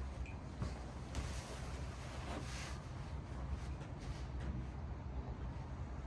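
Steady low rumble with a few soft rustles, about one and two and a half seconds in.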